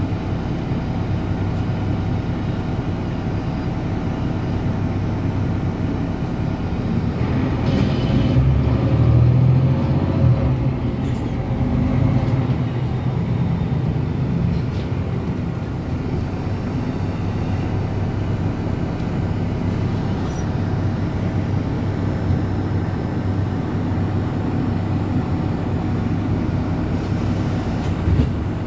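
Ride noise heard inside an articulated Mercedes-Benz city bus under way: a steady low drone of drivetrain and road noise, swelling louder for a few seconds about eight to twelve seconds in.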